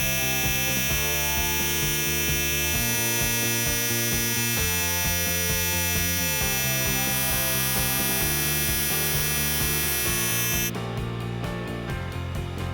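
Background music over the steady buzzing hum of a grinder's electric motor running while the liner lock's lock face is ground. The buzz stops near the end, leaving the music.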